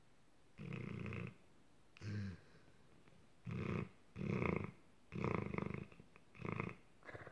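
A sleeping, dreaming dog making a run of short throaty noises in its sleep, about seven in a row, each under a second, with quiet gaps between.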